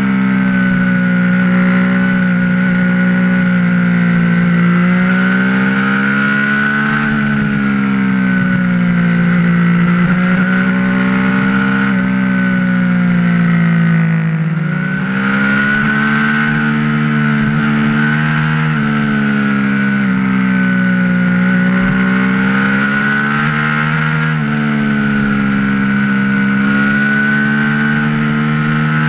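Motorcycle engine running under way at road speed, its pitch swinging up and down as the throttle opens and closes, with a few sudden drops in pitch.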